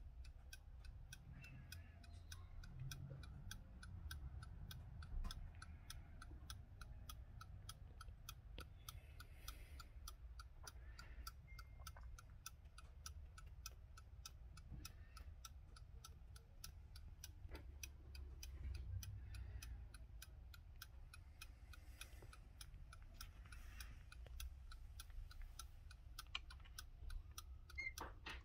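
Faint, steady, fast ticking from the weight-driven mechanical movement of a Romba Black Forest shield clock, about two to three ticks a second.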